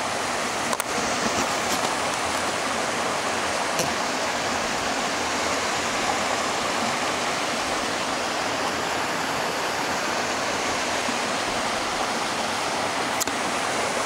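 Creek water rushing steadily where it spills over a low ledge out of a stone arch culvert into a pool.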